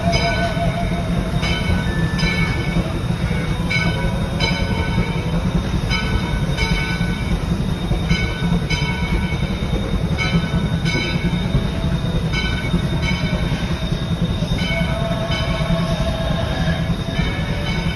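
A railroad passenger car rolling along the track, heard on board: a loud, steady low rumble. Short, high, bell-like ringing tones repeat over it every half second or so.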